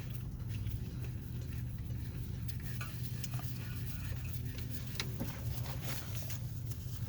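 Light metallic clicks and clinks of hand tools working on engine parts, a few scattered taps over a steady low hum.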